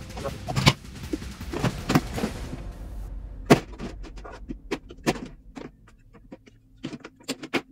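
Scattered knocks and clicks of a storage box and its parts being handled and set in place. The sharpest knocks come about a second in and about three and a half seconds in. A noisy background drops away about three seconds in, leaving sparser knocks.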